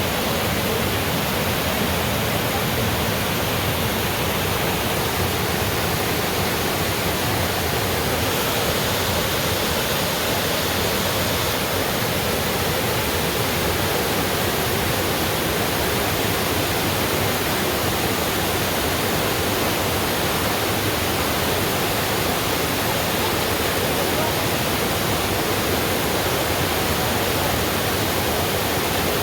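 Waterfall, water pouring and rushing in a steady, unbroken noise.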